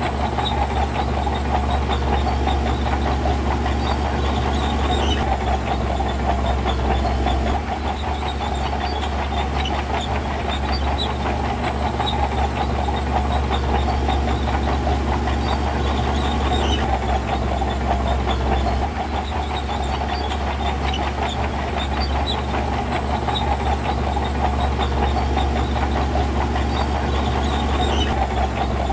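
Diesel engine of heavy earthmoving machinery running steadily under work, with a deep low rumble and small shifts in load now and then.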